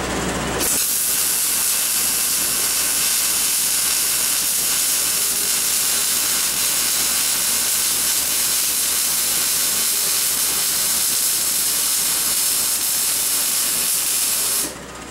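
Electric arc welding: the arc gives a steady hiss that starts just under a second in and cuts off shortly before the end.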